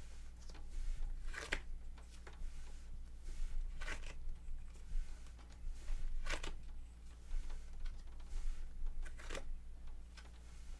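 Tarot cards being handled: a few brief rustles and flicks of the cards, spaced a couple of seconds apart, over a steady low electrical hum.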